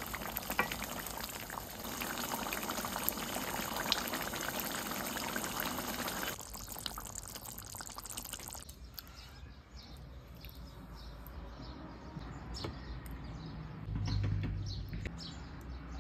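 Chicken curry gravy bubbling and sizzling in a pan while a wooden spatula stirs it, with scattered clicks. After about six seconds it drops to a quieter simmer with many small pops, and a low hum comes in near the end.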